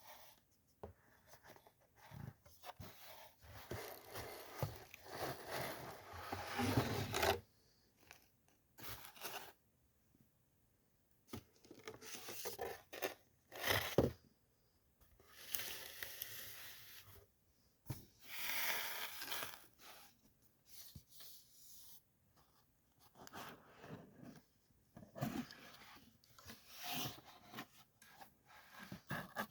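Packaging being opened by hand: bursts of tearing, scraping and crinkling lasting a few seconds each, with short pauses between and one sharp click about halfway through.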